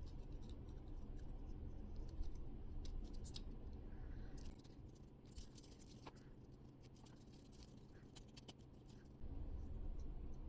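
Stiff paper puzzle pieces being handled and slotted together: scattered light clicks and scratches over a steady low hum.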